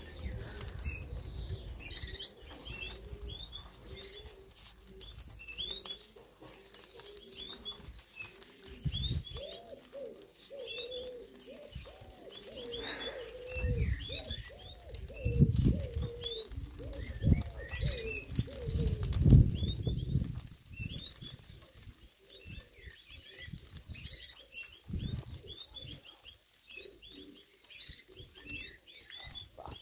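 Racing pigeons cooing, with loud bursts of wing flapping, mostly in the middle stretch and once more later on. Small birds chirp high and thin in the background.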